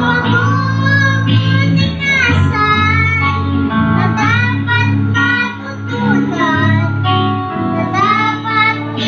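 A boy singing a Tagalog song into a microphone, accompanied by instruments including a guitar.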